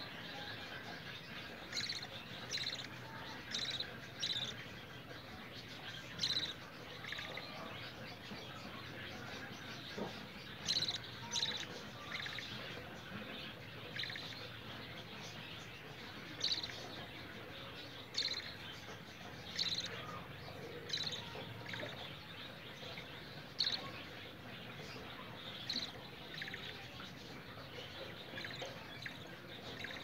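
Short high bird chirps, coming irregularly every second or two, sometimes in quick pairs, over a faint steady background noise.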